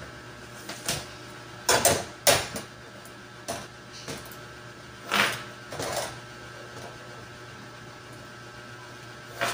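Metal tailor's ruler knocking and scraping as it is set down and shifted on fabric over a table: several short sharp clatters, the loudest about two seconds in, over a steady low hum.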